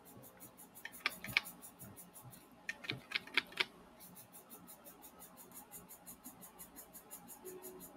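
A 3D printing pen at work on a plastic mask, making a faint, fast, steady ticking. Two short runs of light clicks come about a second in and about three seconds in.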